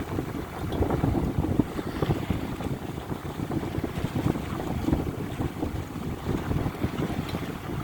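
Wind buffeting the microphone in uneven gusts, over the rush of water past a sailing yacht's hull as it moves along under sail.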